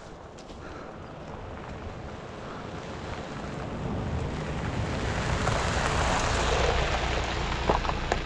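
A pickup truck driving up along a gravel road and pulling to a stop: engine rumble and tyre noise on gravel growing louder over several seconds, loudest about six seconds in.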